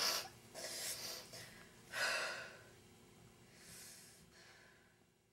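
A young woman crying: sniffles and shaky sobbing breaths, about four of them, the strongest at the start and about two seconds in, then fading away.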